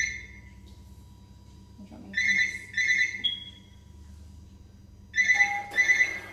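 Electronic beeping: a pair of short high-pitched beeps about every three seconds, like an equipment alarm. Near the end a lower beep sounds and there is a brief rustle.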